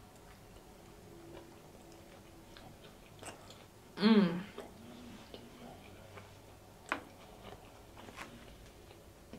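Close-miked chewing of a toasted BLT sub sandwich, with soft wet mouth clicks and smacks. About four seconds in comes a short hummed "mm" with her mouth full.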